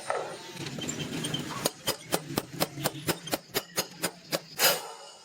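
A quick, even series of sharp taps, about four a second for nearly three seconds, then one heavier knock.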